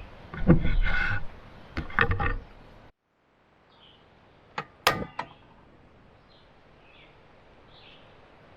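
Irregular knocking and clattering, as of things being handled, which cuts off abruptly about three seconds in. A quiet outdoor background follows, with a few short, faint bird chirps and a brief cluster of clicks.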